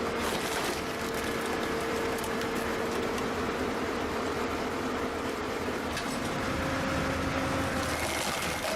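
Machinery running steadily: a constant mechanical din with a droning hum that steps up slightly in pitch about six seconds in.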